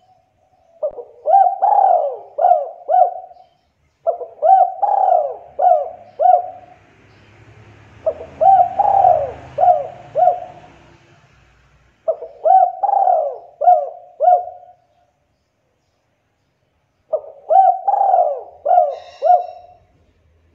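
Spotted dove cooing: five phrases of about five coos each, the phrases a few seconds apart, in the 'kuk 2' song style sought by tekukur keepers.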